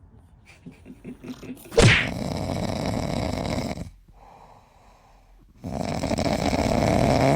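A sleeping pet snoring: two long, loud snores of about two seconds each, the first starting suddenly a little under two seconds in and the second starting halfway through, with a faint breath between them.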